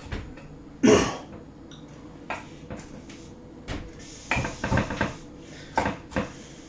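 Kitchen utensils knocking and clattering on a counter and cutting board: a string of sharp knocks, several in quick succession about four to five seconds in, after a louder short sound about a second in.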